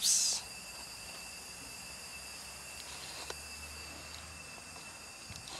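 A short, loud breathy hiss right at the start, then a faint steady background with a thin high whine and a few soft clicks.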